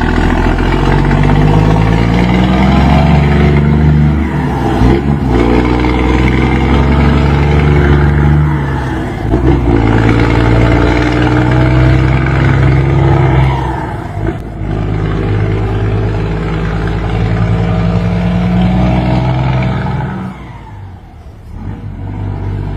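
Scania truck engine with a straight-through exhaust accelerating hard through the gears. The pitch climbs in each gear and drops back at each of three shifts, and the sound falls away near the end.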